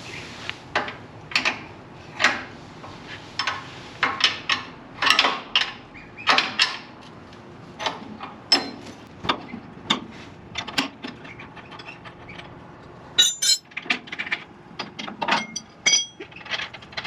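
Wrench work on sawmill motor-mount bolts: irregular metallic clicks and clanks of a ratchet wrench and socket, some ringing briefly.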